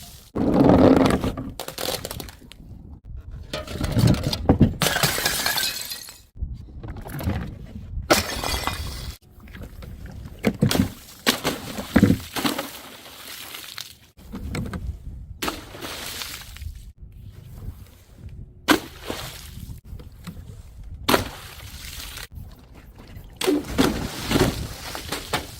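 Glass bottles shattering one after another, each a sudden crash with ringing, clinking shards, separated by abrupt cuts.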